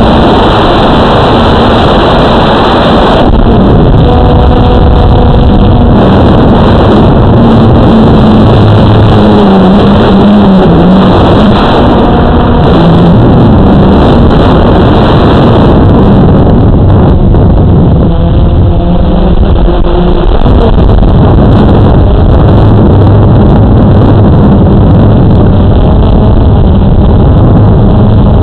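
Blade 350 QX2 quadcopter's four brushless motors and propellers running in flight, close to the onboard camera: a loud, steady drone whose pitch wavers as the throttle changes.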